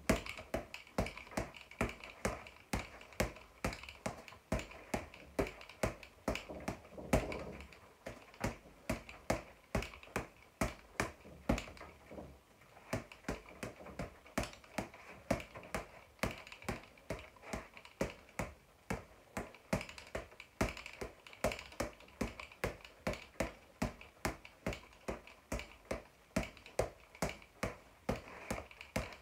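Boxing gloves striking a floor-to-ceiling ball as it rebounds, a steady run of sharp taps about two a second, sometimes bunched into quicker combinations.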